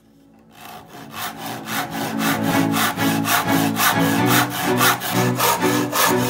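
Dry wood being cut by hand with a saw: quick, regular strokes about three a second, each with a short pitched ring, starting about half a second in.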